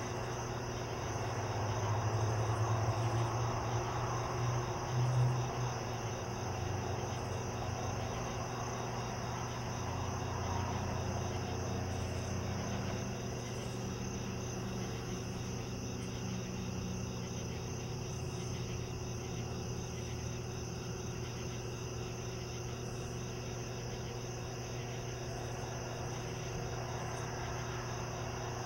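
Chorus of night insects trilling steadily in a high, continuous pulsing drone. Under it runs a low hum that swells for the first several seconds, then settles back.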